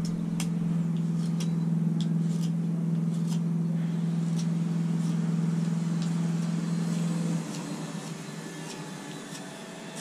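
A steady engine-like hum, the loudest sound, cuts off suddenly about seven seconds in. Over it come scattered short, crisp ticks of a small pocket-knife blade taking shavings off a wooden peg as its point is carved.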